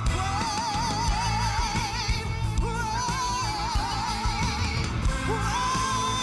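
A woman singing two long held notes with a wide, even vibrato over a live band, then sliding up into another held note near the end.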